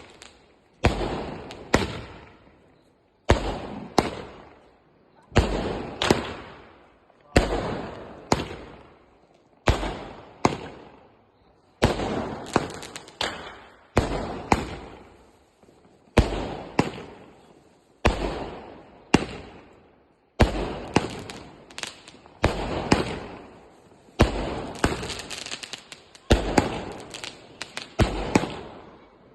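A 60-shot aerial firework cake firing shot after shot, about one every two seconds. Each shot is two sharp bangs about half a second apart, the launch and then the burst, and then a fading rush of noise.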